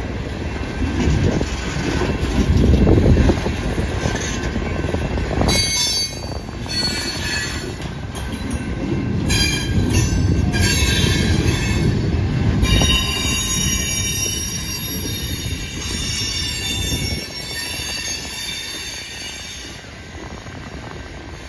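Freight cars of a long mixed freight train rolling past, with a steady rumble of wheels on rail. About five seconds in, high metallic wheel squeal starts and comes and goes until near the end, as the sound slowly fades.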